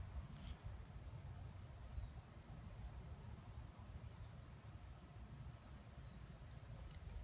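Steady high-pitched chorus of insects calling on two pitches, the higher one getting louder about three seconds in, over a faint low rumble.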